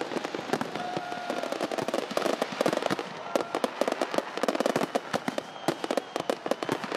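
Fireworks going off: a dense, unbroken run of sharp pops and crackles from many bursts, several every second.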